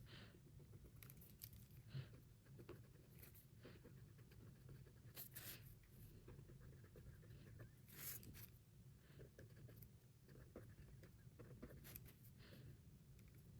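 Near silence: faint room hum with scattered soft rustles and light clicks, the clearest about five and eight seconds in.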